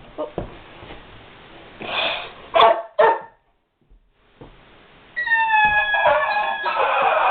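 German Shepherd dog giving two short barks about two and a half seconds in, then whining in a high, drawn-out tone from about five seconds in.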